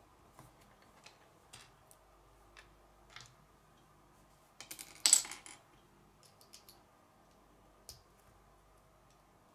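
Small plastic Lego bricks clicking and tapping against each other and on a wooden table, with a louder rattling clatter of pieces about five seconds in.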